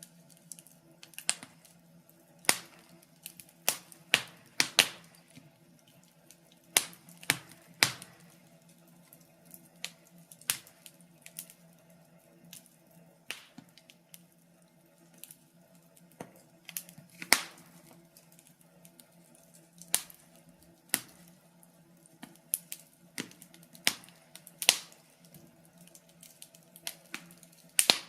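Wood fire in a fireplace crackling: irregular sharp pops and snaps, a few every couple of seconds, over a faint steady hum.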